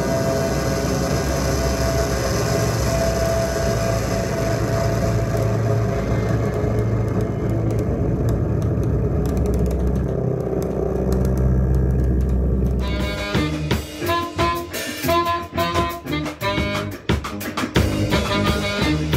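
Live saxophone with electronics: long held saxophone tones over a dense, steady electronic drone with heavy bass. About 13 seconds in it cuts to a saxophone-and-drum-kit duo, the saxophone playing short separate notes over busy drum hits.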